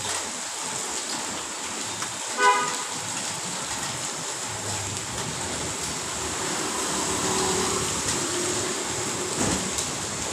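Steady rain and street traffic, with one short vehicle horn toot about two and a half seconds in and a vehicle passing a few seconds later.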